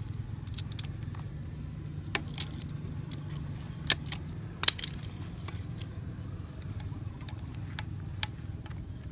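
Scattered sharp clicks and taps from hands and small tools working on a PVC pipe, a few of them louder near the middle, over a steady low hum.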